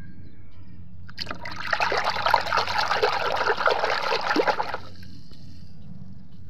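A hand swishing and scrubbing in a basin of soapy water while washing a plastic toy: splashing and sloshing starts about a second in and stops about three and a half seconds later.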